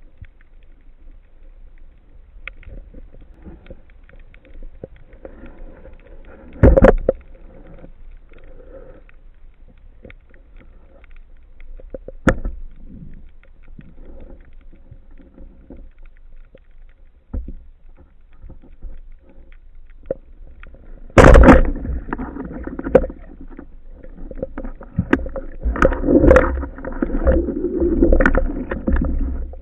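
Underwater sound picked up by a camera mounted on a speargun: a low, quiet water noise with scattered knocks of the gun and gear, one loud one about a third of the way in. About two-thirds of the way in comes a loud sharp crack, followed by busier knocking and rustling of handling noise as the diver works along the gun.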